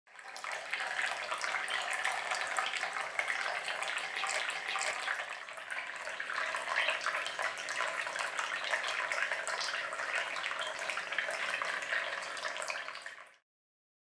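Water trickling and splashing steadily from the thin spouts of a small cement tabletop fountain into its basin, cutting off suddenly near the end.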